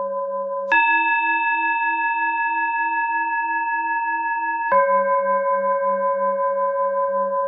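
Tibetan singing bowl tones alternating as breathing cues. A low, gently pulsing bowl tone cuts over abruptly to a higher bowl tone just under a second in. The higher tone rings steadily for four seconds, the cue to breathe in. Then it switches back to the low tone, the cue to breathe out.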